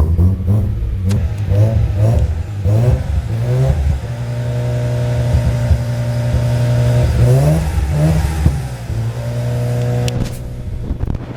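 Mazda RX-7 FC's 13B two-rotor rotary engine, freshly started and still cold, revved in a series of quick throttle blips, then held at a steady speed, blipped once more and eased back near the end. It has to be kept on the throttle until warm enough to idle.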